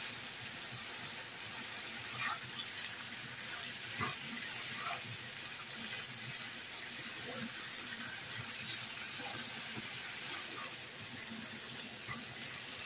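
Pork liver, onion and greens sizzling steadily as they stir-fry in a pan, with a few light clicks of the stirring utensil against the pan.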